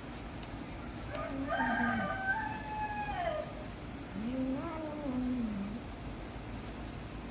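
Cat yowling twice in long, wavering drawn-out calls: a warning at another cat competing for its food.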